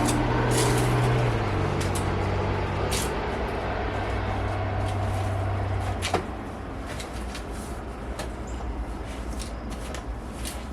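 A steady low machine hum that drops slightly in pitch a little over a second in and cuts off about six seconds in, with scattered light clicks and knocks throughout.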